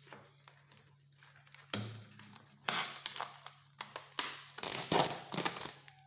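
Crinkling and rustling handling noises as a cover is fitted over a hollowed turnip filled with sugar and cloves, in a run of irregular bursts starting about two seconds in, over a faint steady low hum.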